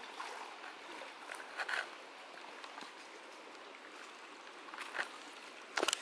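Small waves lapping and washing against a lake shore: a soft steady wash with a few small splashes.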